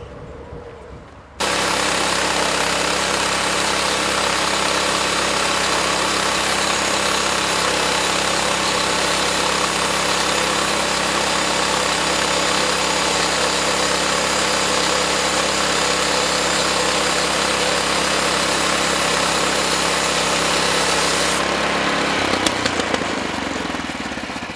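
Portable sawmill running at full throttle, a steady loud engine drone with dense saw noise over it. It starts abruptly about a second in and drops away near the end.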